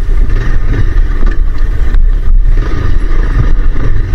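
Motorcycle riding along with its engine running, mixed with steady wind rushing over the microphone.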